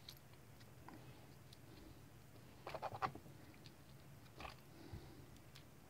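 Near silence, broken by a few faint clicks and taps as a Kwikset SmartKey lock cylinder, its key and a decoder tool are handled. The loudest cluster of clicks comes about three seconds in.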